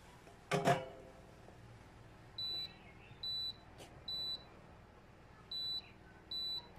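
Induction cooktop's control panel beeping five times, short identical high-pitched beeps as its buttons are pressed to switch it on and set the heat. Near the start there is a single metal clank with a brief ring.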